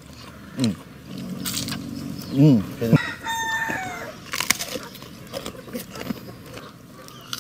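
Crunchy pork chicharon being bitten and chewed, with a couple of short falling vocal groans from the eaters. A rooster crows in the background about halfway through.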